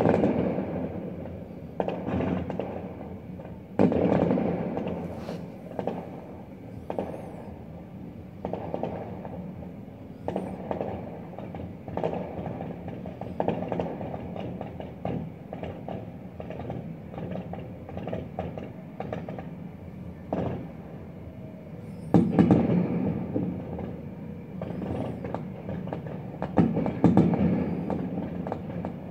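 Fireworks display going off: a run of booms and crackling bursts, loudest right at the start, about four seconds in, and in a dense cluster from about 22 to 28 seconds in.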